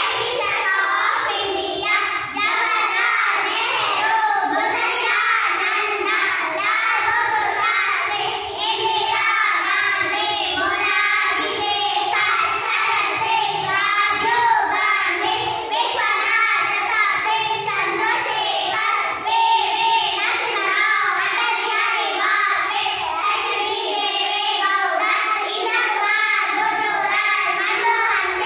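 A group of young girls singing together in unison, without a break.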